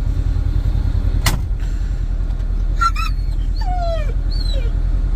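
A dog whining: a few short, high whimpers that slide downward in pitch, over a steady low rumble, with a single click a little over a second in.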